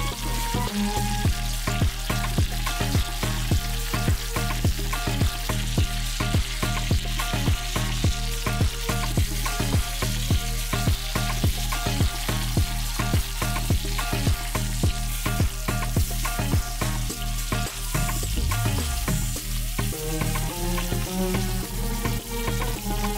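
Spice-rubbed chicken halves sizzling as they fry in hot oil in a pan, over background music with a steady beat of about two a second.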